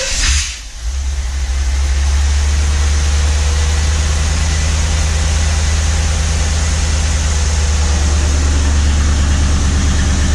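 Chevy 350 small-block V8 in a 1947 Willys truck with headers and dual exhaust, catching about a second in and then idling steadily with a deep, even exhaust note.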